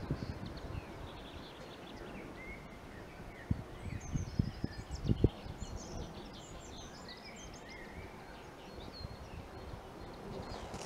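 Small birds chirping and twittering, scattered short calls over a quiet outdoor background, with a few short low thumps in the middle.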